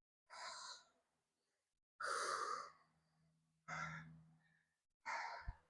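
A man breathing hard after an exercise set: four out-breaths about a second and a half apart, the second the longest and loudest.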